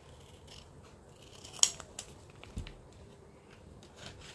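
Scissors snipping through a paper blind bag, a few sharp cuts with the loudest about a second and a half in. Paper rustles near the end as the bag is pulled open.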